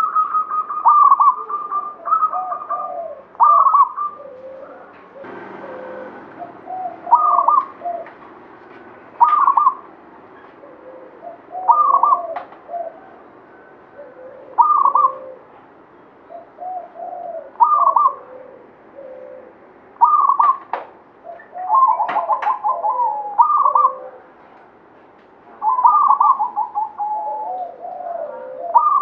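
Caged zebra dove (perkutut) cooing over and over, a phrase every two to three seconds. Each phrase opens with a quick stuttering higher note and drops into lower coos.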